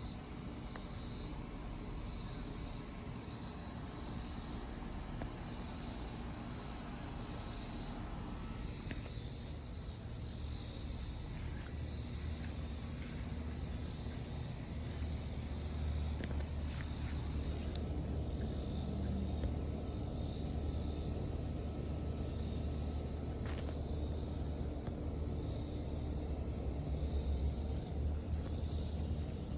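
Insects chirping in regular high-pitched pulses over a garden's outdoor ambience, with a low rumble that grows louder about halfway through and a few faint clicks.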